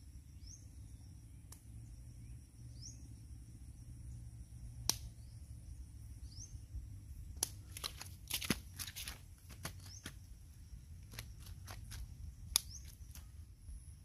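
Light clicks and rustles from handling a freshly caught Mozambique tilapia and the fishing tackle, gathered mostly in the second half. Under them is a faint low rumble, with a short rising call every two to three seconds and a thin steady high insect drone.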